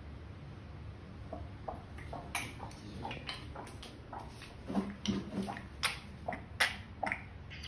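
Cat retching before it vomits: a series of short heaves and gulping, wet sounds that come faster and louder toward the end. They are a sign of the strong nausea that goes with its constipation.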